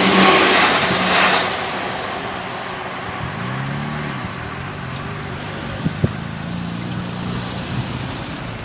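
Seibu Ikebukuro Line electric train passing the level crossing, its rumble dying away within the first second and a half, leaving quieter steady background noise with two sharp clicks about six seconds in.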